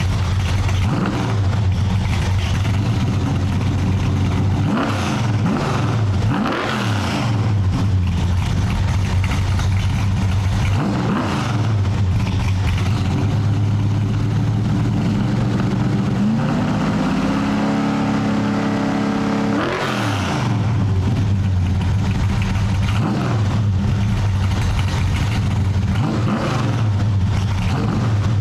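Car engine running while driving on the street, its pitch rising and falling several times as it accelerates and eases off, with a stretch of higher, held revs about two-thirds of the way through.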